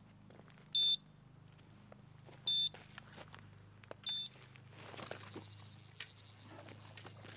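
Electronic carp bite alarm on a rod pod beeping three times, about a second and a half apart: line is being pulled through it, the sign of a carp taking the bait. Fainter rustling and scraping follow as the rod is picked up and the hook set.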